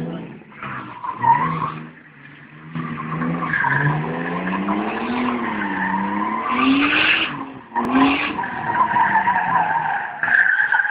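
A car drifting: its tyres squeal in long, sustained screeches while the engine revs rise and fall. The sound briefly drops away about two seconds in and again just before eight seconds.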